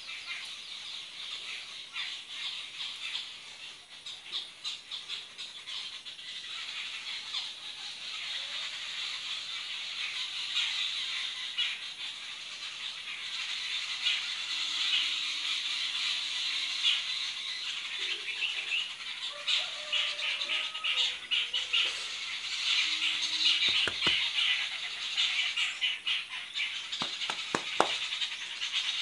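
Long hair rustling and crackling as a hand strokes, pulls and rubs through it, in uneven swells that grow louder toward the end, with a few sharp clicks near the end.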